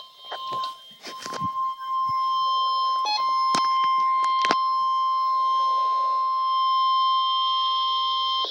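NOAA Weather Radio warning alarm tone: one steady, unwavering electronic tone that comes in about a second in and holds at a constant level. Several sharp clicks of radio static break in during the first few seconds.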